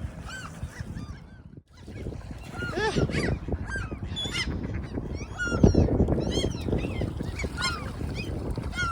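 A flock of seagulls calling, many short arched calls overlapping one another over a low rumble, with a brief dropout about a second and a half in.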